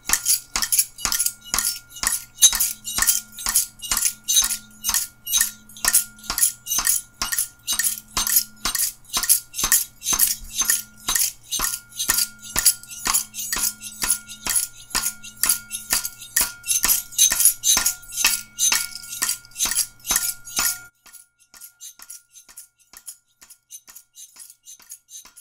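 Electronic music: rapid, evenly spaced ticking percussion about three strokes a second over a held high tone and a low bass drone with pulsing notes. About three-quarters of the way through, the bass and tone drop out, leaving quieter ticking.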